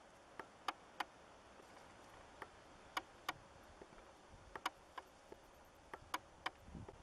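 New Zealand fantail (pīwakawaka) giving short, sharp chip calls: about a dozen, irregularly spaced, some in quick pairs.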